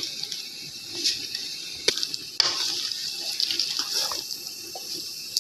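Boiled black chickpeas bubbling and sizzling in a pot as their cooking water is boiled off, with a spoon stirring them and knocking against the pot a couple of times about two seconds in.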